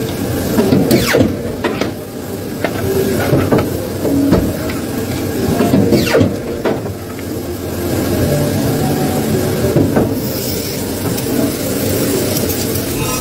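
Polar industrial guillotine paper cutter running with a steady machine hum. Its blade comes down through a stack of printed paper with a swishing shear and clacks, about a second in and again about six seconds in.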